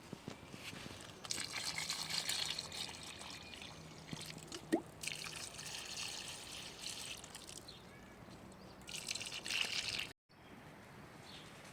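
Garden being watered: water splashing and trickling onto plants and soil in three spells, cutting off suddenly near the end.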